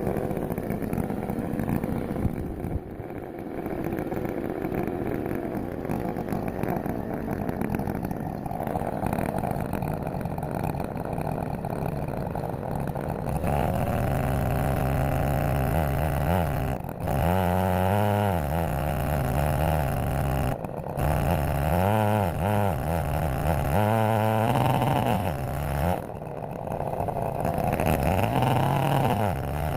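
Large chainsaw running on an Alaskan chainsaw mill, ripping a log, its engine pitch wavering and sagging under load. It gets louder about halfway through and drops away briefly several times.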